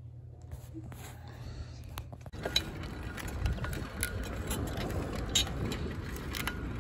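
A steady low room hum, then about two seconds in an abrupt change to outdoor noise: wind rumbling on a handheld microphone with scattered light clicks.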